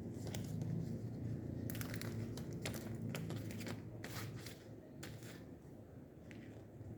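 Fingers pressing and popping a homemade taped pop-it fidget: irregular crinkly pops and clicks, roughly one a second.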